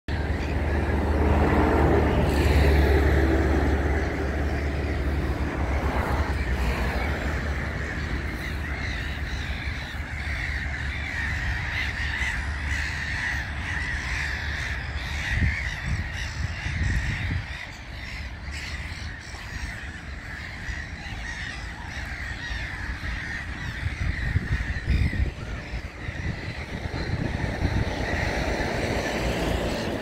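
A colony of gulls calling nonstop, many harsh overlapping calls at once, under a low rumble that is strongest in the first few seconds.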